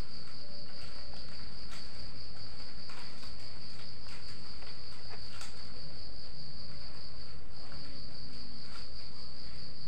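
Steady high-pitched insect trill, with a brief break about seven and a half seconds in, and a few faint clicks.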